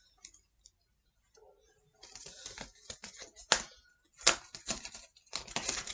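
A small plastic Fix-ems collectible packet being opened by hand. It is quiet at first, then from about two seconds in comes a run of crinkling and crackling with a few sharp snaps, the loudest about three and a half and four and a quarter seconds in.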